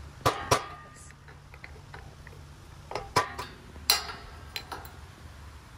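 Hammer striking a steel punch to drive a bearing race out of a T1N Sprinter's front wheel hub: several sharp metallic taps at irregular intervals, two close together near the start and a cluster around the middle.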